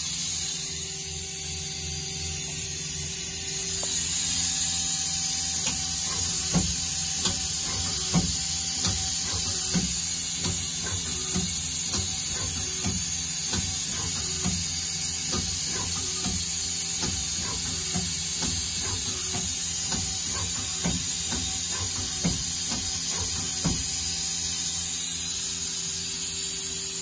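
Mazak QTN-200MY CNC turning center running under power: a steady motor whine and hum over a high hiss, getting louder about four seconds in. A light tick repeats about every second and a half through most of it.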